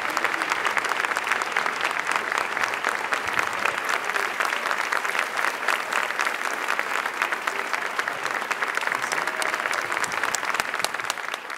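An auditorium audience applauding: dense, sustained clapping that starts to die away at the very end.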